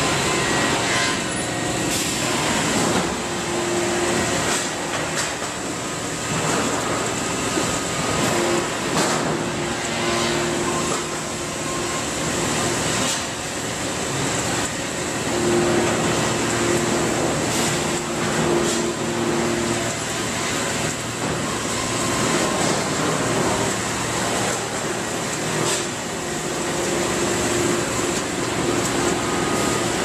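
Sawmill production line running: steady mechanical clatter of chain and roller conveyors carrying timber, with frequent knocks and a hum that comes and goes several times.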